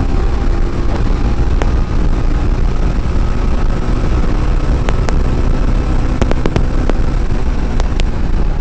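TVS Ronin motorcycle on the move: its single-cylinder engine running under a steady low rumble of ride noise, with a few sharp clicks.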